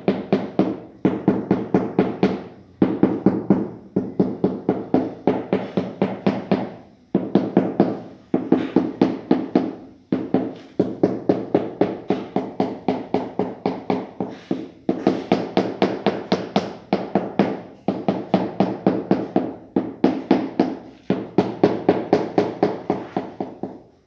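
Rubber mallet tapping a ceramic floor tile down into its mortar bed, bedding and levelling it. Rapid runs of sharp taps, several a second, each run lasting a second or two with short pauses between.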